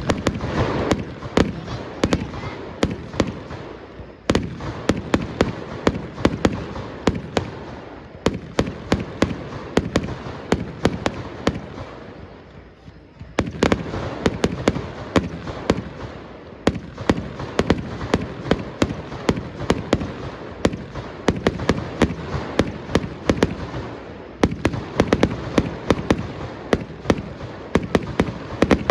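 Fireworks display: a rapid barrage of shell bursts, many sharp bangs a second. There is a brief lull a little before halfway, then the barrage picks up again.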